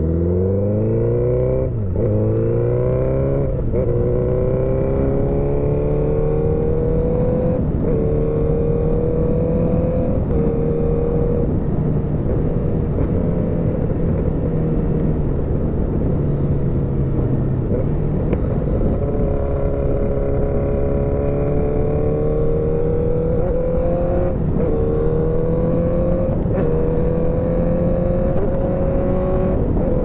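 Motorcycle engine pulling away, its pitch climbing and dropping sharply at quick gear changes in the first few seconds. It then runs at a steadier speed with slow rises and a few more shifts, over a constant rush of wind and road noise.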